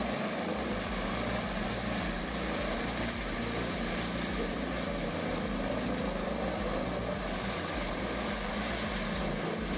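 Large wood chipper running steadily under load, its engine drone with a constant rushing noise of material going through. It cuts off abruptly near the end.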